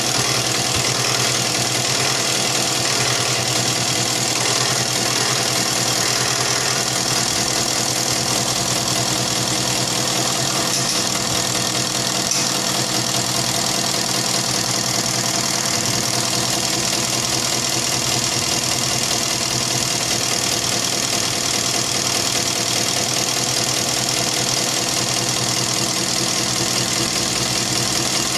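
Isuzu 4BC2 four-cylinder diesel engine running steadily at idle after its injection pump has been cleaned and recalibrated to cure hard starting.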